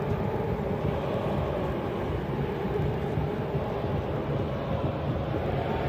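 Steady outdoor ambience of a football match: a continuous, even rumbling noise with no distinct events.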